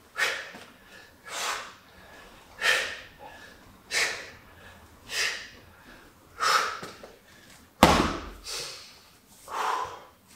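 A man's sharp, forceful exhales, one about every 1.3 seconds, in time with each swing of a Bulgarian bag. About eight seconds in comes a single heavy thud as the bag is dropped onto the floor mat.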